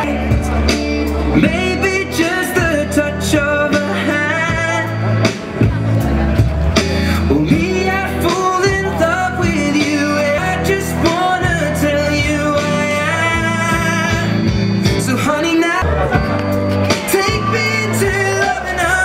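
A song playing: a sung melody over a steady bass line.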